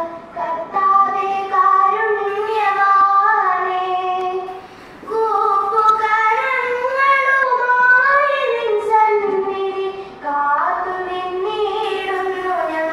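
A small group of schoolgirls singing a prayer song together in long held phrases, with short breaks about five and ten seconds in.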